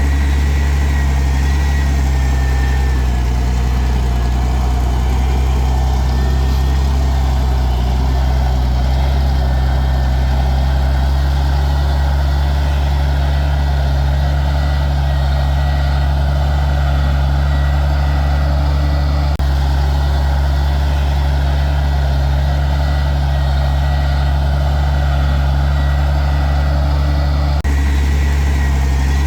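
Heavy diesel engine of earthmoving road-building equipment running steadily at constant speed, with a thin high whine over it.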